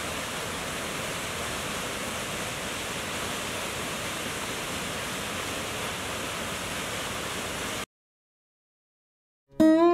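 Waterfall: a steady rush of falling water that cuts off abruptly about 8 seconds in. After a short silence, a plucked acoustic guitar chord rings out near the end, the loudest sound here.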